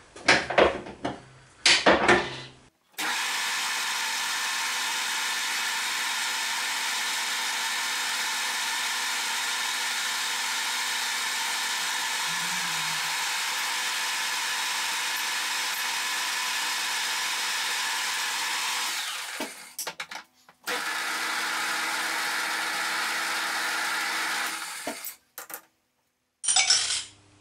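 Harrison M300 metal lathe running steadily with its chuck spinning. It stops briefly about two-thirds of the way through, runs again, then stops. A few knocks at the start and a short loud burst near the end.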